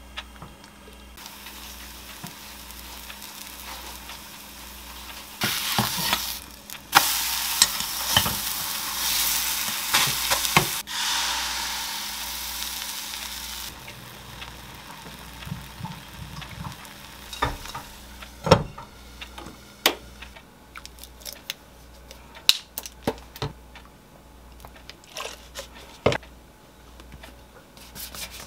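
Spinach batter sizzling in a lightly oiled frying pan on a gas hob. The hiss starts about a second in, is loudest for about eight seconds in the middle, then drops to a low hiss. The second half has scattered sharp clicks and taps.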